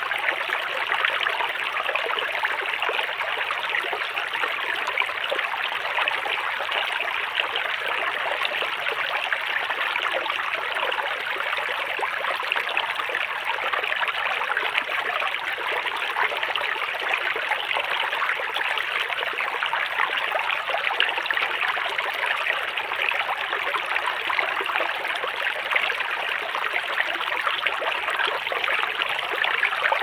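Shallow river water rushing and splashing over rocks: a steady, even babble.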